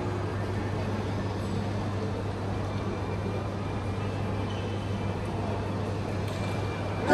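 Steady background noise of a busy shopping mall: a constant low hum under an even wash of crowd murmur, with no music playing.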